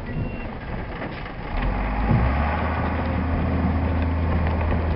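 Snowplow truck's engine running, growing louder about a second and a half in as it works harder. A short reversing beep sounds near the start.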